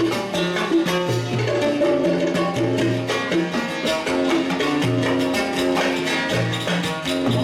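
Instrumental music: plucked string melody over a steady rhythmic percussion beat and bass line.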